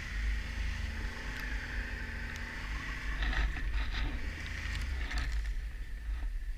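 Snowmobile running along a trail: a low engine rumble with a steady high whine from the drive. Between about three and five seconds in, a rough rushing, brushing noise joins it as the sled pushes through snow-covered branches.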